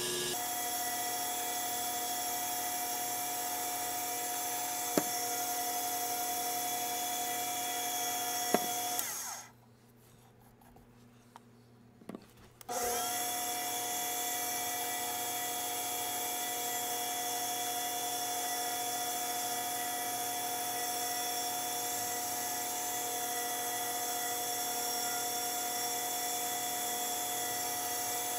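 Small lathe motor running with a steady whine while a ring on a mandrel is wet-sanded with polishing paper. About nine seconds in it winds down and stops, near-quiet for about three seconds with a few small knocks, then starts running again.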